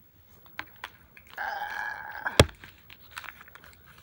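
Handling noise on a phone's microphone: scattered light taps and clicks, a short muffled sound with a steady pitch around the middle, then a louder knock just after it.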